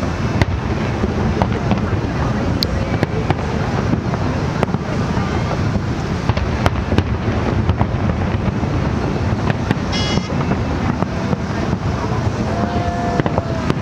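Fireworks barrage: many aerial shells bursting in close succession, a continuous heavy rumble with sharp cracks standing out throughout.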